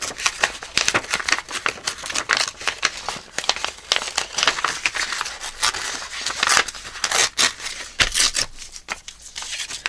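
Paper being torn by hand in small bits around printed flower images, a close run of short rips and crinkles that thins out near the end.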